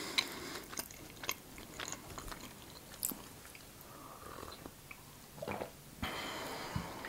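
Soft mouth sounds: a sip of tea from a mug a little after the middle, among small wet clicks of the lips and tongue.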